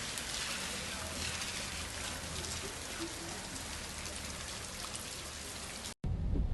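Steady rain falling: an even hiss with faint scattered drop ticks. Just before the end it cuts off abruptly, replaced by a louder low rumble.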